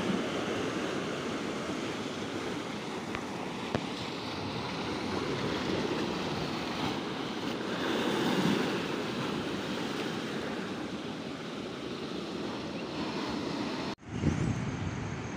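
Ocean surf and wind: a steady rushing of waves that swells about eight seconds in. Near the end the sound cuts out for a moment, then wind gusts buffet the microphone.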